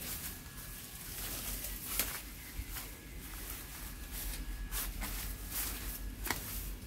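Footsteps of a person walking: about six irregular light taps, over faint background noise.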